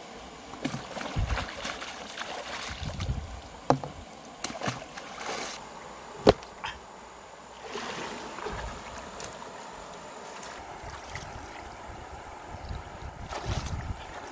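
River water splashing and sloshing as a person wades through it, broken by a few sharp knocks, the loudest about six seconds in.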